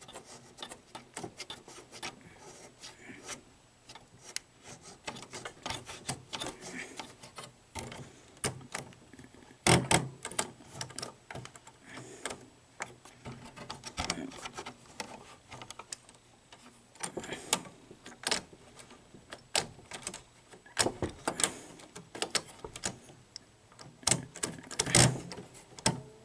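Sony SL-HF500 Beta Hi-Fi VCR's tape-loading mechanism being pushed through its motions by hand, with no power: irregular clicks and clacks of its parts, with louder knocks about ten seconds in and near the end. The owner takes the way it moves as a sign of a mechanical issue.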